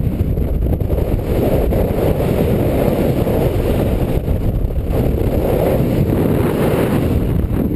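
Rushing wind buffeting the microphone of a paraglider pilot's camera through wingover swings: a loud, dense low rush that swells and eases.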